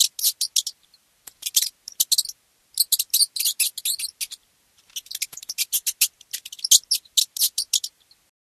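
Mouse squeaking: rapid strings of short, high-pitched squeaks in four runs with brief pauses between them, stopping shortly before the end.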